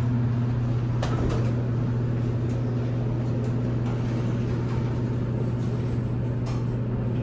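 Steady low electrical hum of an elevator running, with a few faint clicks.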